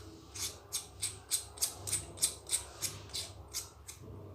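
Plastic screw cap on the Boya BY-M1 microphone's battery housing being twisted tight by hand: a run of short scratchy clicks, about three a second.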